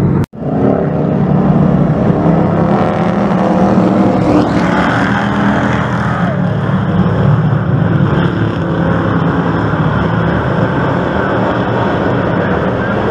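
Engines of several dirt-track race trucks running hard around the oval, a loud, continuous blend of overlapping engines whose pitch rises and falls as they go around. The sound cuts out for a split second just after the start.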